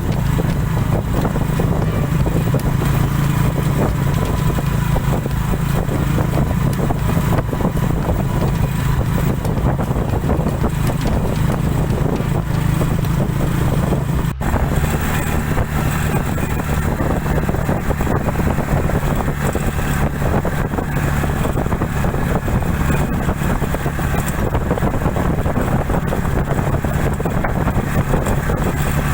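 A motor vehicle's engine running steadily at an even pitch, with road and wind noise, heard from on board.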